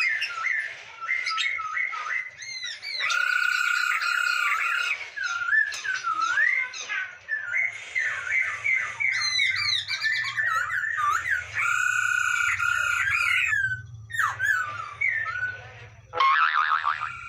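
Poksay Hongkong, a laughingthrush, singing a long, varied song of slurred whistled notes broken by fast rattling trills, with a short pause near the end. A faint low hum runs under it from about eight seconds in.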